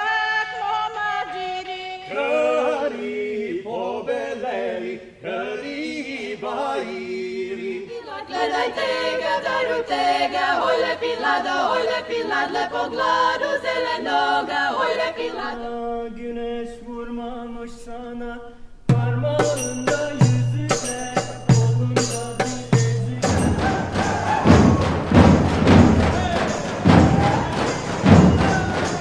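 A group of women singing folk song in close harmony, the voices settling on a held chord about halfway through. About two-thirds in, large folk bass drums start a steady beat, and the full ensemble of drums and instruments comes in for dance music.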